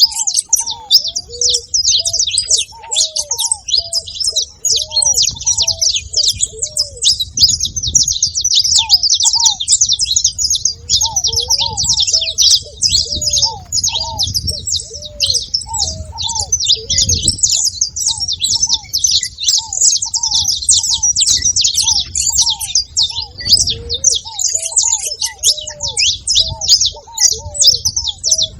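Saffron finches chirping and singing in a dense, continuous high twittering. Under it, a ruddy ground dove gives a steady series of short, low coos.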